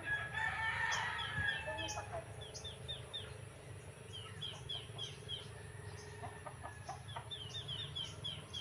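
Chickens clucking and calling as they feed, with runs of quick, high, falling chirps repeated throughout and a short burst of clucks near the end.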